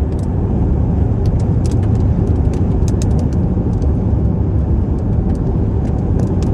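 Steady low rumble of a car driving through a thunderstorm, heard from inside, with scattered sharp ticks of raindrops hitting the car.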